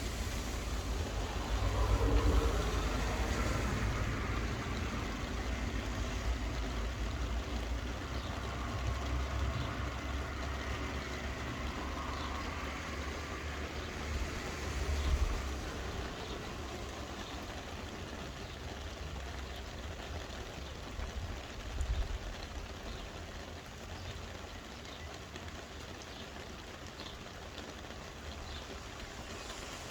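Steady rain hissing, with a low rumble underneath. A louder swell comes about two seconds in, and there are brief louder moments about halfway and about two-thirds of the way through.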